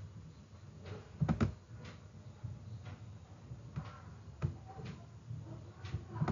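Faint computer mouse clicks and small desk taps over a low room hum, with a louder close pair of clicks about a second and a half in.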